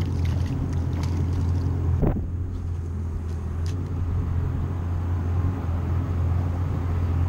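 A steady low engine drone, with a few light splashes and clicks near the start and a brief knock about two seconds in.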